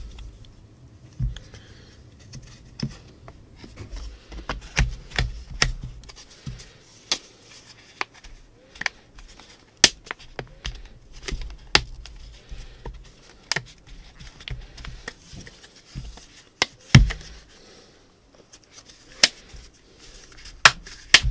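Hands handling a JBL Flip 4 speaker while fitting its fabric-covered grille back on: irregular sharp plastic clicks and knocks with some rubbing and low thumps, the loudest knock about two thirds of the way through.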